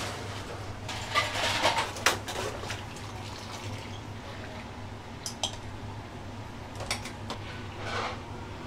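Clatter and sharp clinks of stainless-steel noodle strainer baskets and utensils handled at a soba boiler, most of it in a burst about a second in, with single clinks later, plus some water sloshing. A steady low hum of kitchen equipment runs underneath.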